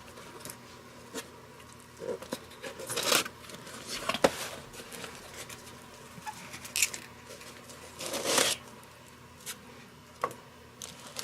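Cardboard box being opened and its packaging handled: scattered rustles, scrapes and light clicks, with a longer rustle about eight seconds in.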